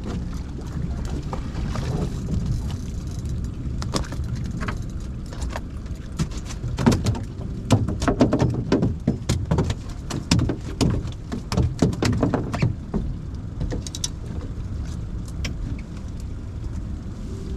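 Irregular clattering knocks and rattles, densest and loudest from about four to thirteen seconds in, as a sand bass is landed and handled aboard a small fishing boat, over a steady low rumble.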